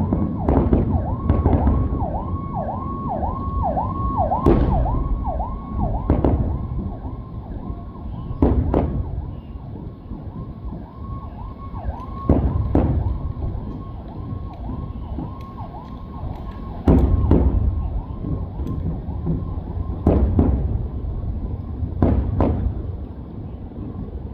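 Emergency-vehicle siren on a fast yelp, its pitch sweeping up and down about three times a second. Over it, fireworks shells go off with a bang every few seconds, about seven in all.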